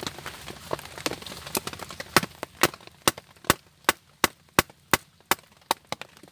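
A knife being batoned down through a small upright stick of firewood: a run of sharp wooden knocks, about two and a half a second, starting about two seconds in, after lighter irregular clicks.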